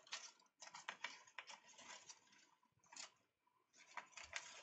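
Faint paper rustling with light ticks as a punched paper tape is handled and fed by hand into a homemade paper tape reader. The sound comes in short, scattered bursts and stops briefly about three seconds in.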